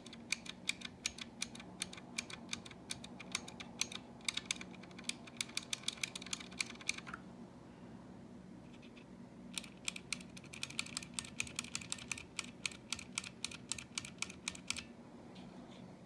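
Bare Outemu Blue clicky mechanical key switches, keycaps removed, pressed repeatedly close to the mic: a fast run of sharp clicks, several a second. The clicks stop about seven seconds in, and after a pause of about two seconds a second run starts as the switch on the other keyboard is pressed.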